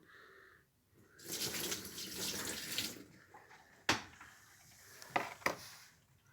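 Water running into a twin-tub washing machine for about two seconds, starting about a second in, poured in to test whether a leak has been fixed. A few sharp knocks follow near the end.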